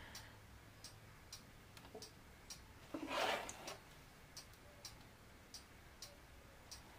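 Faint, regular ticking, roughly two ticks a second, over a low steady hum, with one brief soft rushing sound about three seconds in.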